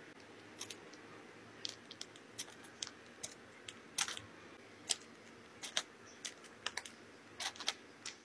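Sparse, irregular small clicks and taps from food handling: a metal fork setting biscuits into a parchment-lined tin, then a piping bag being squeezed, over a faint steady room hum.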